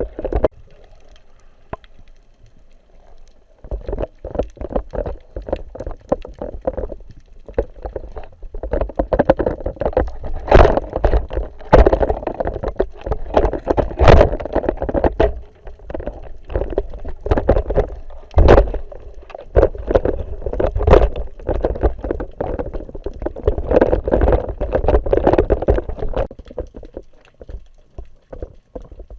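Muffled water sloshing and gurgling, with frequent knocks and bumps, picked up through an action camera's waterproof housing while freediving; quieter for the first few seconds, then busy.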